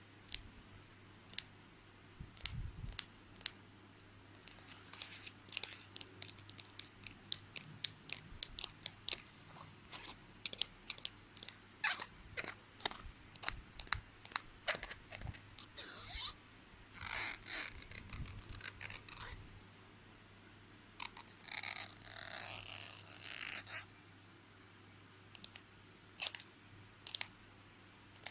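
School supplies handled close to the microphone: a long run of sharp clicks and taps, with two longer scratchy, rasping stretches about seventeen and twenty-two seconds in.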